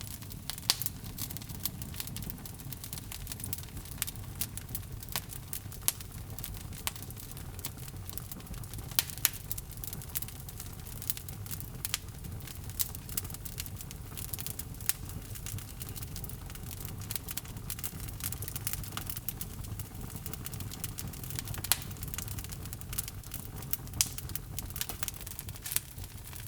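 Log fire burning in a fireplace: a steady low rumble of the flames with irregular crackles and sharp pops from the burning wood.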